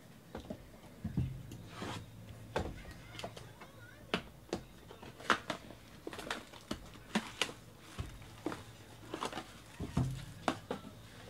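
Cardboard trading-card box being opened and handled by hand: a run of sharp clicks, taps and scrapes of cardboard and wrapping, with soft thumps on the table about a second in and again near the end.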